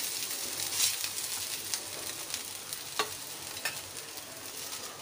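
Desi ghee sizzling on a hot tawa as a steel spoon spreads it over a stuffed paratha, with a few sharp taps and scrapes of the spoon against the pan.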